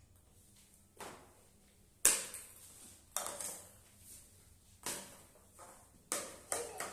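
A table tennis paddle and small plastic ball knocking on a tiled floor: about seven sharp knocks, irregularly spaced, the loudest about two seconds in and three in quick succession near the end.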